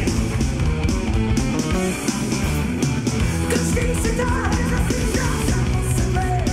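Background rock music with a steady beat and a singing voice.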